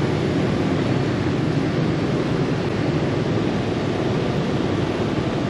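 Steady street traffic and road noise while travelling along a city street, with wind rushing over the microphone.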